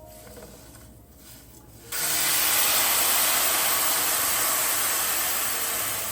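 A loud, even hiss starts suddenly about two seconds in and slowly fades toward the end.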